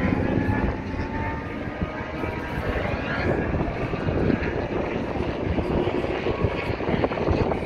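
Race car engine note fading away within the first second as a car moves off down the circuit, then a steady rumbling noise of distant racing engines.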